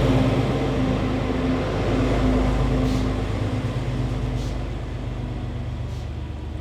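Diesel engine of a Series 9630 metre-gauge diesel multiple unit running steadily, its sound gradually fading.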